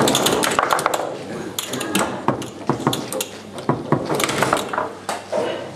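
Fast foosball play on a Tecball table: rapid, irregular hard plastic clacks of the ball being struck by the men and rebounding, mixed with rods knocking as they are slid and shot. The clacks come in quick clusters, busiest about the first second.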